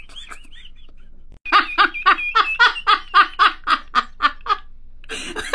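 A person laughing hard. It starts with a high, wavering squeal, then after a short pause comes a rapid run of 'ha-ha' bursts, about five a second, and a fresh burst of laughing begins near the end.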